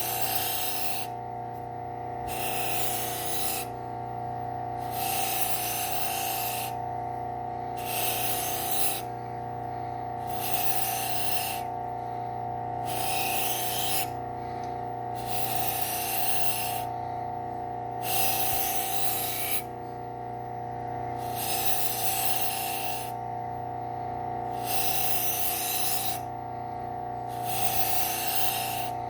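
Serrated kitchen knife drawn over and over across a Scotch-Brite wheel on a low-speed belt sander to clear the burr. It makes a hissing scrub about once every two seconds over the steady hum of the running machine.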